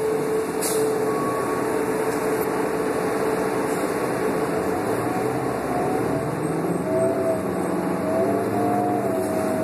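Inside a New Flyer D40LF city bus under way: the Cummins ISL diesel and Allison transmission run steadily over road noise, with a drivetrain whine that rises in pitch about halfway through as the bus picks up speed.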